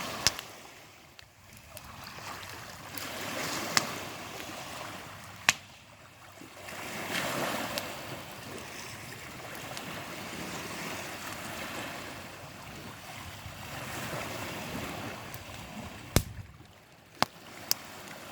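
Small waves washing onto the beach, swelling and fading every few seconds, with a few sharp pops from the campfire.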